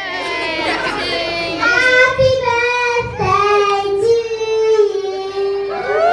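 A young child singing into a microphone, drawing out long held notes.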